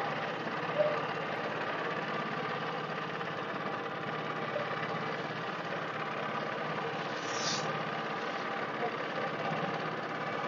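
Canoe's boat engine running steadily while under way, with a brief hiss about seven and a half seconds in.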